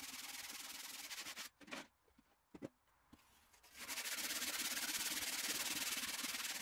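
A regular handsaw cutting through a soft insulating fire brick, a steady gritty rasping. It stops for about two seconds just before the middle, then resumes louder.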